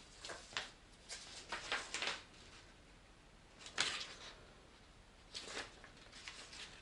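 Faint paper rustling and crinkling in short scattered spells as printed leaflets and a setup guide are unfolded and leafed through by hand.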